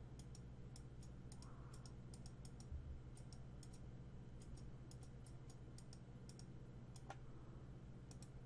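Faint, irregular clicking of a computer mouse, a few clicks a second, over a steady low electrical hum.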